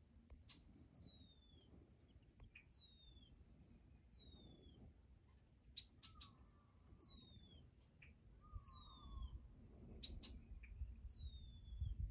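A songbird singing a clear whistled note that slides down in pitch, repeated six times about two seconds apart, with scattered short chips and clicks between. A faint low rumble builds toward the end.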